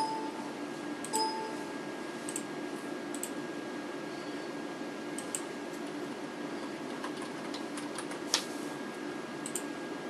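A few sharp clicks of a wireless mouse's buttons, the loudest about eight seconds in, over a steady hum. Two short beeps near the start.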